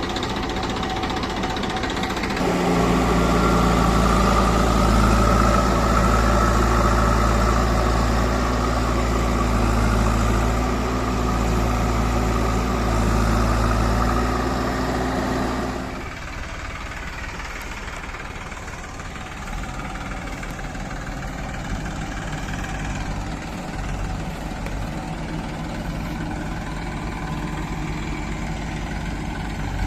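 Diesel engine of heavy earthmoving or farm machinery running steadily. It picks up and gets louder about two seconds in, holds, then drops back to a quieter, lower run about sixteen seconds in.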